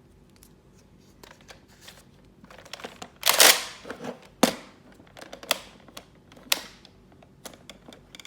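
Plastic clicks and clacks of a Nerf Flip Fury dart blaster being reloaded and handled, with a short rushing burst about three and a half seconds in and single sharp clicks about once a second after it.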